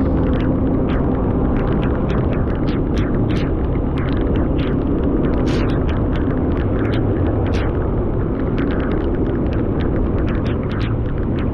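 Steady low rumble of a vehicle on the move with wind buffeting the microphone, dotted with many irregular sharp ticks of raindrops striking the camera.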